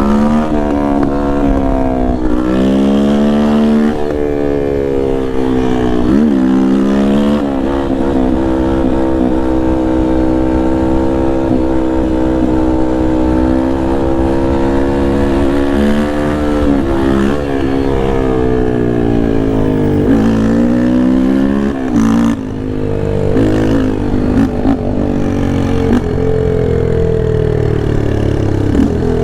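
Yamaha Lander 250's single-cylinder four-stroke engine under hard riding. It revs up through the gears, with quick drops in pitch at each shift, and holds a steadier note for several seconds in the middle. The throttle closes briefly a little after twenty seconds.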